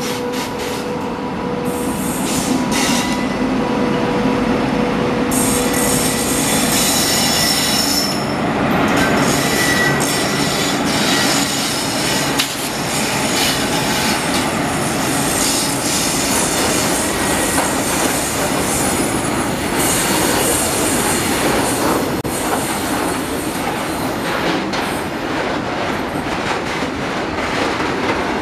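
Electric-hauled freight train of tank wagons running past on the next track, a continuous loud rumble of steel wheels on rail with clickety-clack over the rail joints and intermittent wheel squeal. A steady humming tone from the passing locomotives sits under it for the first several seconds.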